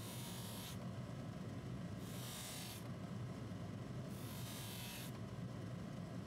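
Polishing machine motor running with a steady hum while a small metal watch part is pressed against the spinning buffing wheel in short strokes. Each stroke is a hiss lasting under a second, about every two seconds, three times.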